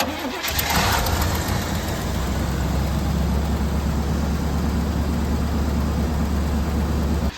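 1987 Chevrolet Monte Carlo SS's 305 V8 running at a steady idle.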